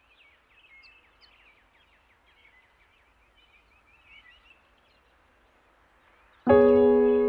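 Faint birdsong, a run of quick high chirps. About six and a half seconds in, music starts suddenly with a loud held chord that rings on.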